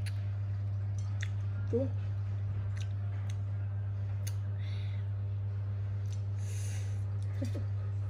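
A steady low hum throughout, over which come scattered small clicks and smacks of tangerine segments being handled and eaten, a brief squeak about two seconds in and another near the end, and a couple of soft breathy hisses.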